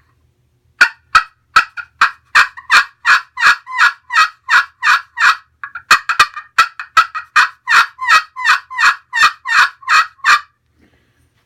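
Aluminum pot call played with a yellowheart wooden striker, making turkey yelps: two long runs of evenly spaced yelps, about three a second, with a short break about halfway. The yelps have a nice rasp to them.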